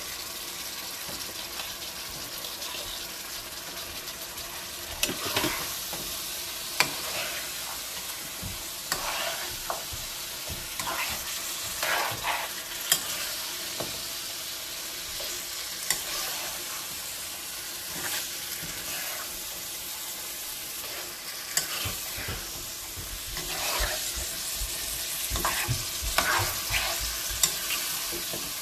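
Sliced carrots in masala sizzling in a non-stick wok as they are sautéed. A spatula stirs and scrapes through them at an irregular pace, with a few sharp clicks of the utensil against the pan.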